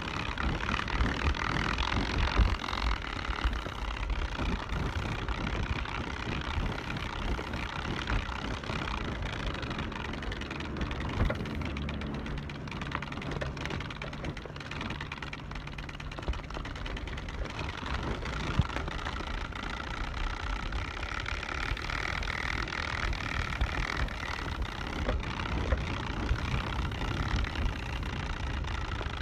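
A cardboard card taped to a bicycle, flapping against the spokes of the turning wheel, making a fast buzzing run of clicks that imitates a motorcycle engine. It gets a little louder and softer with the riding speed.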